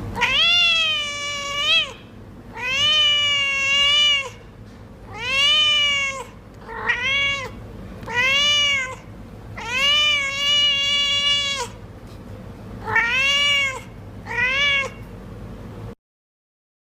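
Domestic cat meowing repeatedly: about eight drawn-out meows, each rising then falling in pitch, with short pauses between them.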